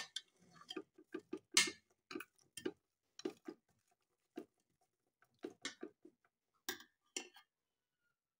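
Metal spoon stirring raw meat and sliced onions in a metal pot: irregular clinks and scrapes of the spoon against the pot, stopping about a second before the end.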